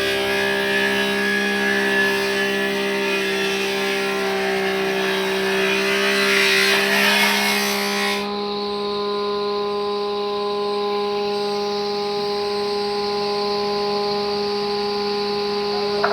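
Power saw cutting through timber with a rasping noise over a steady motor hum. About eight seconds in, the cutting noise stops abruptly and the saw keeps running freely.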